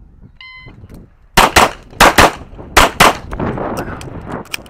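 Electronic shot-timer start beep, then a pistol firing six shots in three quick pairs, each pair about a fifth of a second apart. Softer clicks follow near the end.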